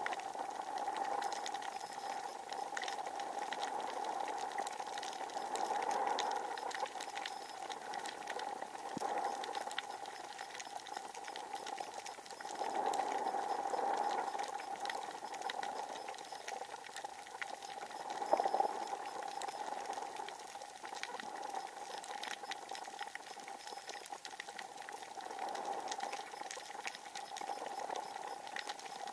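Underwater ambience on a coral reef: a dense crackle of tiny clicks over a steady hum that swells and fades every few seconds.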